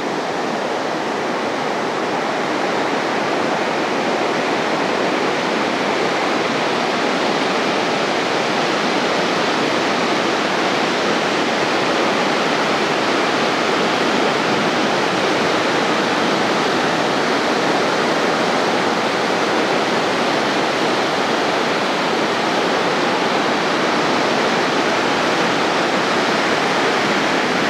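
Ocean surf breaking and washing onto a beach, a steady unbroken wash of waves.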